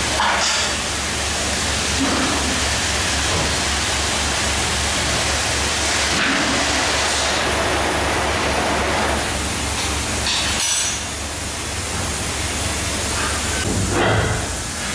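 Oxygen cutting torches on a CNC plate-cutting machine hissing steadily as they burn through steel plate, with a steady low hum underneath.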